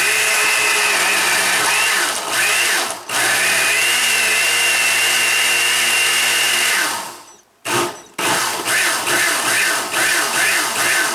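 Countertop blender motor running at speed, pureeing a jar packed with boiled tomatoes, tomatillos and peppers into salsa. It runs steadily for about seven seconds with a brief break about three seconds in, stops, then is pulsed on and off several times near the end.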